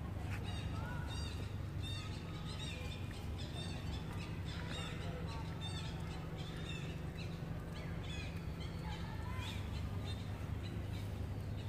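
Many short, high chirping squeaks from animals, scattered throughout, over a steady low rumble.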